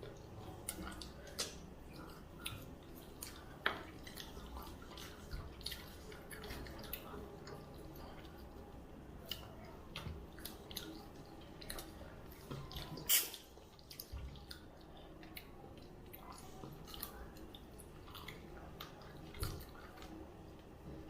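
Quiet wet eating sounds of a rice and fish curry meal: scattered soft clicks and smacks of chewing, with one sharper click about thirteen seconds in.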